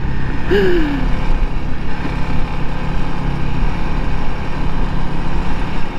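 Honda CRF300L's single-cylinder engine running steadily as the bike cruises along a gravel dirt road, with wind rush and tyre noise.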